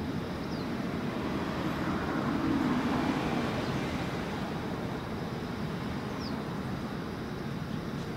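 Steady low rumble of distant engine noise over a hiss, swelling a little between about two and three and a half seconds in. Two faint short high chirps, one near the start and one about six seconds in.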